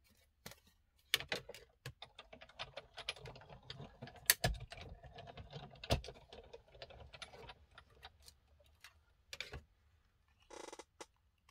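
Hand-cranked die-cutting machine being turned, a die and card sandwich between cutting plates rolling through: a run of irregular clicks and knocks over a steady rumble, then a short rattle near the end.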